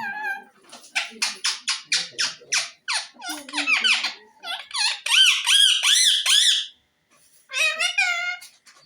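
Pet parrot vocalizing: a rapid run of short, harsh squeaky notes, about three or four a second, then looping whistled calls that slide up and down in pitch. After a brief pause, another call comes near the end.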